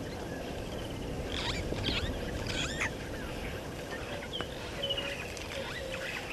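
Wild birds giving short chirps and calls, a cluster about a second and a half in and more around four to five seconds in, over a steady low background rumble.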